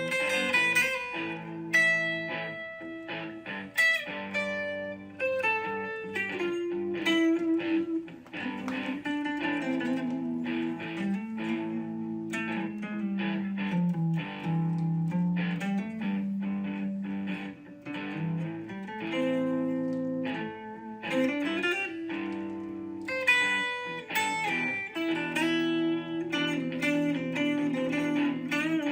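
Background music led by plucked guitar, with many quick picked notes over held lower tones.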